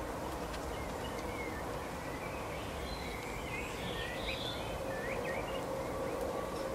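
Small songbirds chirping and twittering in short, quick high glides, busiest in the middle, over a steady outdoor background rumble with a faint steady hum underneath.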